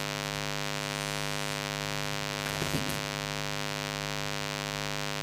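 Steady electrical mains hum with many overtones, the buzz of the recording setup, with a brief faint sound a little past halfway.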